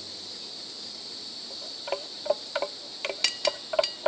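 Steady high chirring of crickets and other insects, and from about two seconds in a quick run of sharp metallic clinks and taps as a utensil scrapes and knocks food out of a pot onto a plate.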